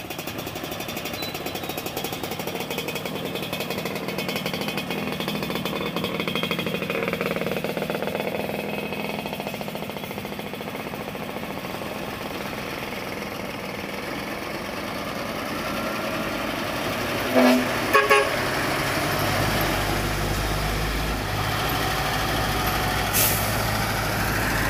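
Sand dump truck engine running on the road, growing louder and deeper in the last few seconds. Two short vehicle horn toots about seventeen seconds in, and a brief hiss near the end.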